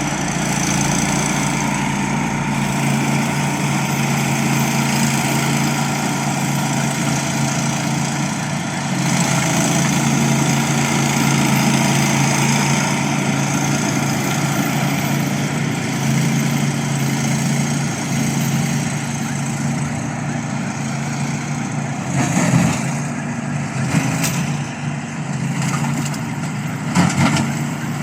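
Engine of a remote-control lawn mower running steadily, with a few short knocks near the end.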